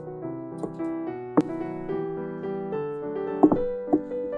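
Background piano music with held notes. Over it come a few sharp knocks, one about a second and a half in and two close together near the end, from the wooden spoon striking the glass mixing bowl as batter is stirred.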